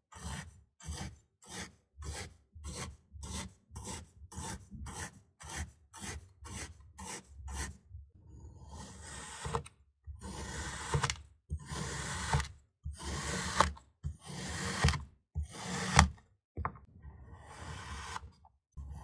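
Crunchy kinetic sand being worked with metal tools: about two to three short gritty scrapes a second from a pronged tool, then slower crunching strokes of about a second each as knives slice through the packed sand, several with sharp crackles.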